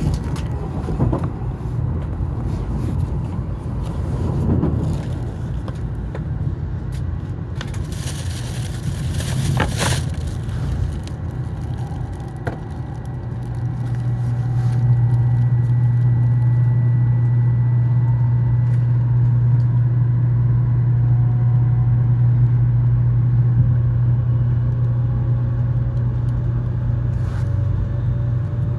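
Interior running noise of an N700S Shinkansen train heard inside the Green car: a steady rumble with a brief loud rushing surge about a third of the way in. A low drone then grows louder and holds, while a faint whine climbs slowly in pitch.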